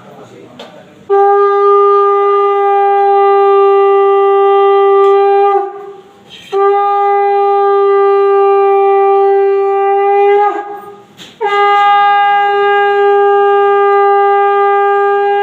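Conch shell (shankha) blown in three long, steady blasts of about four seconds each, with short breaks for breath and the pitch dipping slightly as each blast ends: ritual conch blowing.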